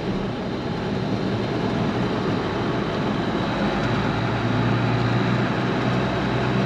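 Farm tractor engine running steadily as the tractor drives along, heard from the riding position; the low engine note grows a little stronger about four seconds in.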